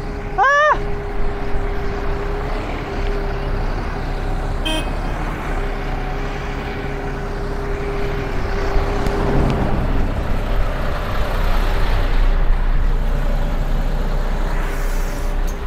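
Street traffic with a steady engine hum that holds one tone, as a city bus waits at the kerb. About half a second in, a short rising call or whistle stands out briefly.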